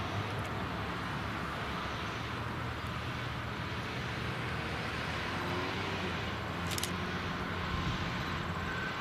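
Chesapeake & Ohio 1309, a 2-6-6-2 articulated steam locomotive, approaching slowly: a steady hiss of steam from its open cylinder cocks over a low rumble, with a couple of sharp clicks near the end.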